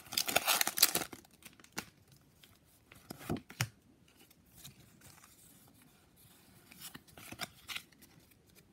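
Foil wrapper of a Pokémon TCG Hidden Fates booster pack crinkling and tearing as it is pulled open, for about the first second. After that, only soft scattered rustles and clicks as the trading cards are handled.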